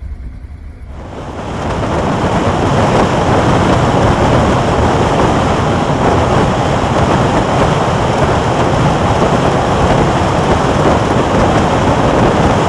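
Wind rushing over a motorcycle-mounted camera's microphone at highway speed, a loud steady rush that covers the engine. It sets in about a second in and holds unchanged.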